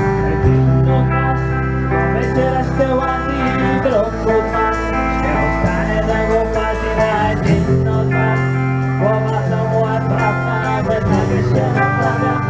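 A live punk band playing loudly, with electric guitar, bass guitar and a drum kit keeping a steady beat, and a singer's voice over it.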